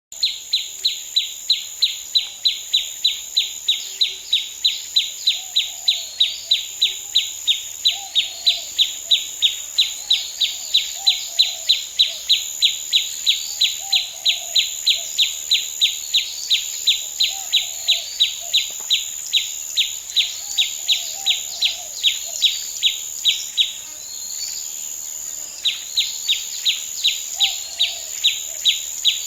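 Forest ambience: a high chirp repeats steadily about three times a second and drops out briefly near the end. Under it runs a steady high-pitched buzz, with faint lower bird calls now and then.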